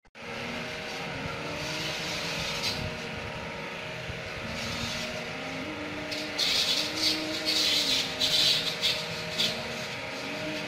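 A small electric motor running steadily, its pitch wavering up and down, with louder bursts of hissing spray between about six and nine and a half seconds in. This fits a pressure-washer pump spraying water over an air conditioner's outdoor unit.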